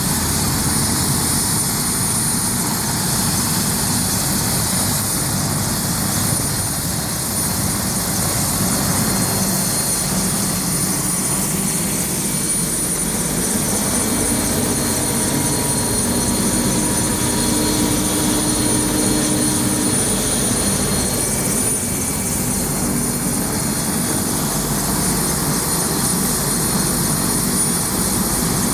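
Bell 407 helicopter running on the ground with its rotor turning: steady turbine whine over the engine and rotor noise.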